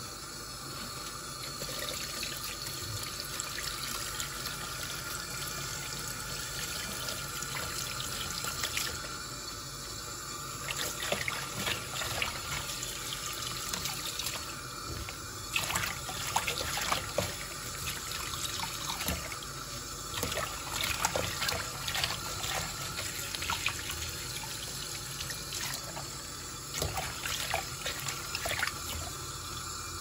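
Kitchen tap running onto mallow leaves being rinsed in a plastic colander, a steady splash of water. Sharper splashes and knocks come through the second half.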